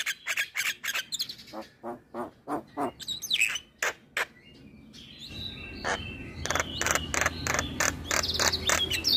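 Javan myna singing a rapid string of short clicking and whistled notes, going quiet briefly about halfway, then a fast run of notes again.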